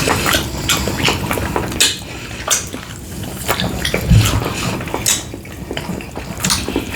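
Close-miked eating sounds: wet chewing and mouth smacks with irregular clicks of cutlery on a plate, and a low thump about four seconds in.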